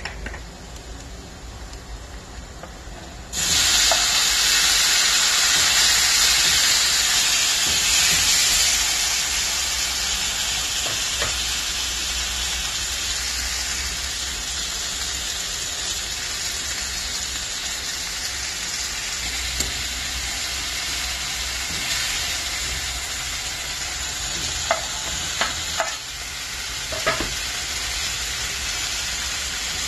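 Chopped tomatoes and spices frying in hot oil in a steel kadai. The sizzle starts suddenly and loud about three seconds in, then slowly settles to a steady frying hiss. A few sharp clinks of a utensil against the pan come near the end.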